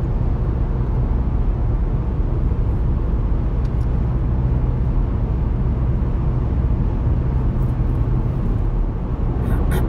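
Steady road noise inside a car cruising at highway speed: an even, low rumble of tyres and engine.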